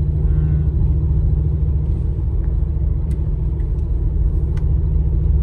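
Car driving along at a steady pace: an even, low engine and road rumble.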